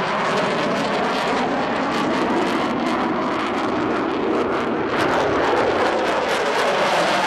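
Jet noise from a Swiss F/A-18 Hornet's twin turbofan engines as the fighter flies overhead, a steady, dense rush that grows slightly louder about five seconds in.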